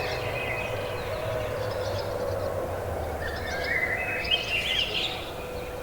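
Several birds chirping and singing in short, scattered phrases, busiest a few seconds in, over a steady low rumble and a faint steady hum: a rural morning soundscape.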